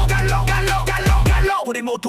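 Instrumental hip hop track with a deep bass line and kick drums under a higher melody; the bass and beat drop out about one and a half seconds in, leaving the upper parts.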